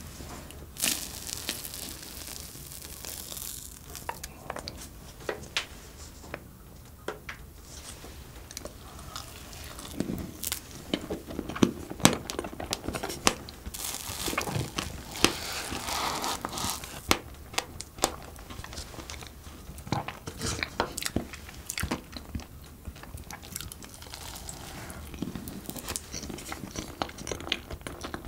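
Close-miked eating sounds: a soft cupcake taken from a wooden spoon and chewed, with many short, sharp mouth clicks and smacks at irregular intervals.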